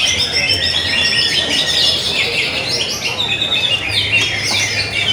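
Many caged cucak ijo (greater green leafbirds) singing at once: a dense, unbroken tangle of overlapping rapid chirps and short whistled phrases.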